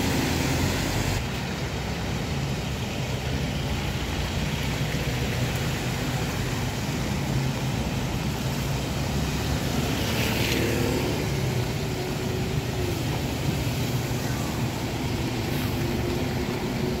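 Road traffic on a wet road: diesel coaches and a pickup passing, with engine drone and tyre hiss on the wet surface, and a short sharper hiss about ten seconds in. Near the end a Zhongtong LCK6128H Magnate coach draws close.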